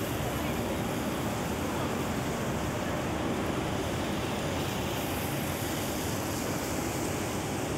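Steady rain on a city street at night: an even, unbroken hiss of rainfall mixed with the low rumble of wet traffic.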